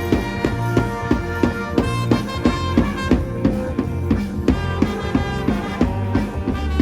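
Band music at a funeral procession: a melody of held notes over a steady drum-kit beat of about three strokes a second.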